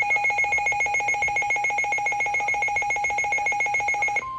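Emergency weather alert signal: a rapidly pulsing electronic alarm tone, about a dozen beeps a second, that cuts off suddenly near the end. A single steady warning tone takes over, typical of the NOAA Weather Radio alert tone that comes before a tornado warning.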